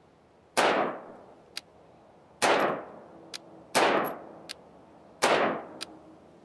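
Four slow, aimed shots from a Radical Firearms 7.5-inch AR-15 pistol in 5.56, spaced about one and a half seconds apart, each followed by a faint sharp tick.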